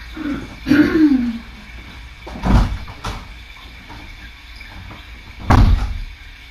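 Two loud, sudden thuds about three seconds apart, like a door or cupboard being shut, with a fainter click between them. About a second in there is a short, low, falling voice-like sound.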